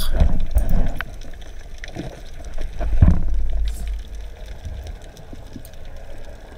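Underwater ambience picked up through a GoPro's waterproof housing: a steady low rumble of moving water with scattered soft knocks, and one louder thump about three seconds in.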